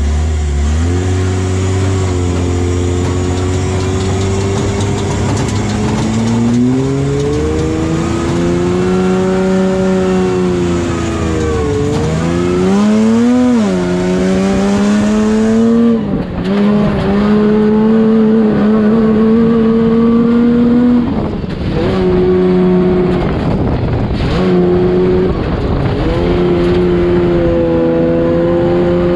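Baja trophy truck's engine heard from inside the cab while the truck laps a dirt track, its pitch climbing and falling over and over with the throttle, with a few short dips where it backs off.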